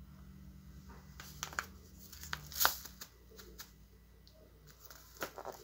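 Bag of cornmeal crinkling as it is picked up and handled, a few short crackles and knocks, the loudest about two and a half seconds in.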